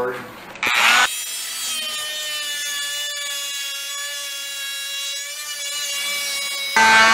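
Dremel oscillating multi-tool sawing into a round log section jammed on a bandsaw blade. It starts with a sharp burst about a second in, then runs with a steady whine, and gets abruptly louder near the end.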